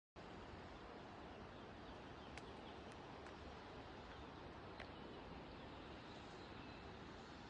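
Faint steady outdoor background noise, like a quiet countryside, with a few short, high chirps scattered through it.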